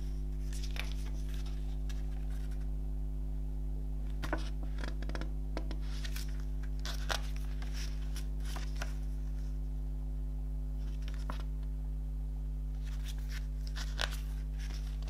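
A CD case and its paper lyrics booklet being handled, with pages turned: scattered crisp paper rustles and crackles and a couple of sharper clicks. Under them runs a steady low electrical hum.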